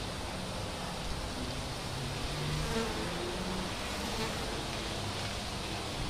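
Honeybees buzzing as they fly around a wooden beehive, with single bees passing close in short buzzes that rise and fall in pitch, over a steady hiss.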